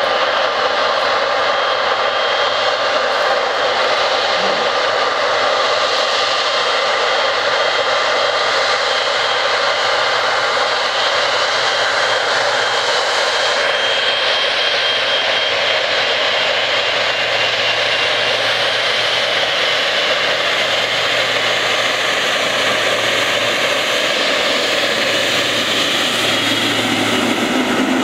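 Boeing 777-200F freighter's twin GE90 turbofans running at takeoff power during the takeoff roll. Loud, steady jet noise with a high, even whine on top, getting deeper near the end as the aircraft rolls past close by.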